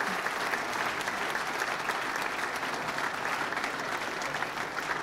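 An audience applauding steadily, a dense patter of many hands clapping, easing slightly near the end.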